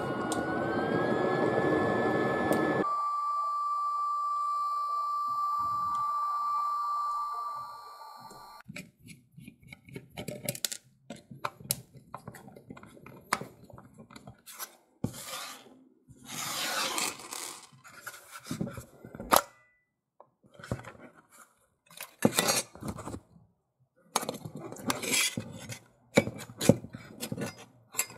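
BioLite CampStove burning wood with its fan running: a rushing burn and a steady whine that steps up in pitch about a second in. The burn cuts off about three seconds in, leaving the whine alone until about eight seconds in. After that come scattered clicks, knocks and scrapes of a hex key and hands working on the orange plastic power module as its case is unscrewed and pried apart.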